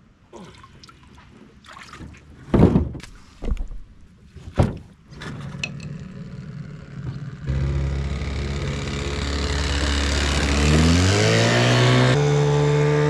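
A few knocks and thumps of gear being handled, then a boat motor running. Its pitch climbs as it speeds up about ten seconds in, then holds steady.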